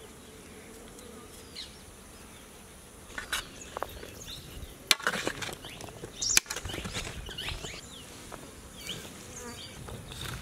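Chopped vegetables being stirred and tossed in a large aluminium tray with a metal spatula, starting about three seconds in, with sharp metal clinks about five and six and a half seconds in. A faint insect buzzing runs underneath.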